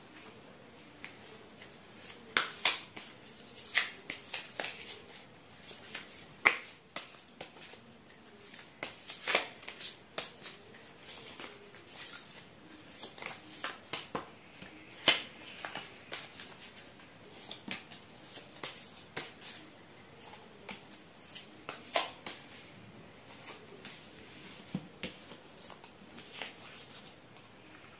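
A tarot deck being shuffled by hand: a series of irregular sharp snaps and slaps of card stock. Toward the end the cards are dealt out onto the cloth.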